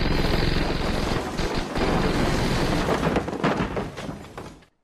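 A long unbroken burst of rapid automatic gunfire, a dubbed firearm sound effect, dying away just before the end.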